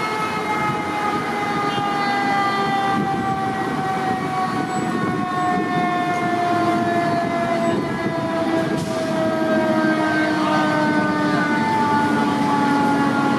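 Fire engine's mechanical siren winding down, its pitch falling slowly and steadily, with a second, lower tone coming in about halfway through.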